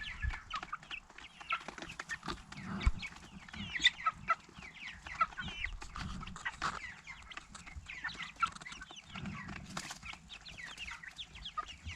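A flock of four-week-old Meat King broiler chicks peeping and cheeping in a dense, continuous chatter of short high calls, excited over food at the feeder, with a few soft knocks among them.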